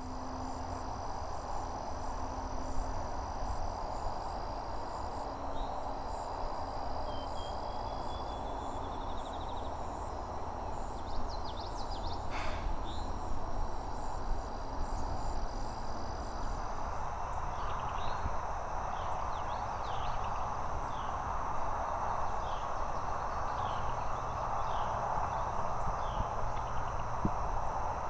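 Outdoor rural ambience: insects trilling in steady high tones over a constant hiss of background noise, with bird calls. These include a short rising phrase, and later a run of short repeated notes about one a second through the second half.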